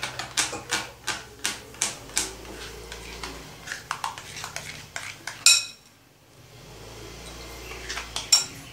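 A metal spoon stirring thick flour batter in a glass bowl, clinking against the bowl's side two or three times a second. The loudest clink comes about five and a half seconds in. After that the stirring goes on more softly, with a couple more clinks near the end.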